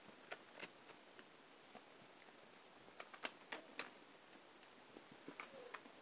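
Near silence with a few faint, scattered clicks, clustered around three to four seconds in.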